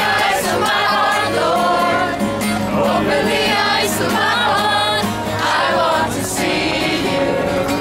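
A group of young voices singing together, led by a man singing and strumming a steel-string acoustic guitar.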